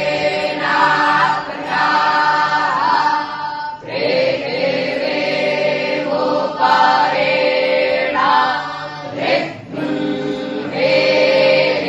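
A group of young Vedic students (batuk Brahmins) chanting Sanskrit mantras in unison, in long held phrases with short breaks for breath about four seconds in and again near the nine-second mark.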